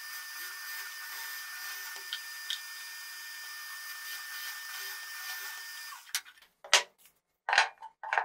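Bosch bench drill press running steadily, its bit boring into a wooden block, with a faint steady whine. The machine sound cuts off about six seconds in, followed by a few loud, sharp knocks.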